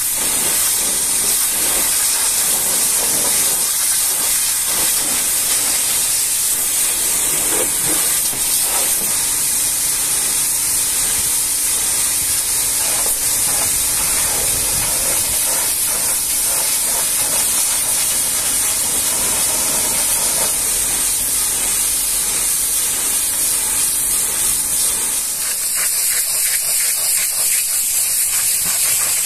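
High-pressure washer jet hissing steadily as it sprays a truck cab's panels. About 25 seconds in the sound changes as the jet is turned onto a tyre and wheel.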